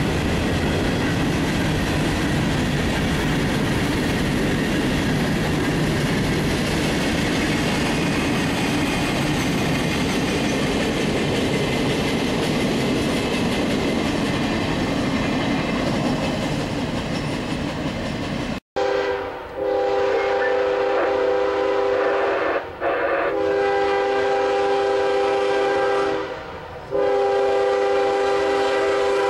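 Freight train rolling past, a loud steady rush of wheels and cars on the rails. After a cut about two-thirds of the way through, an approaching locomotive's air horn sounds a chord in three long blasts, a crossing signal.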